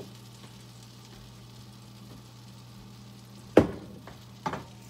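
Puffball-mushroom French toast frying quietly in butter in a pan, over a steady low hum. About three and a half seconds in a sharp knock rings out, the loudest sound, with a smaller knock about a second later.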